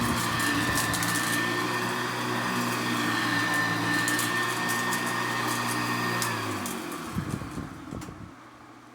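Hoover Convertible U4423 upright vacuum cleaner, hot-rodded with a 12-blade metal fan, running steadily with a high whine. A little after six seconds in it shuts off and the motor winds down, falling in pitch, with a few knocks as it comes to rest.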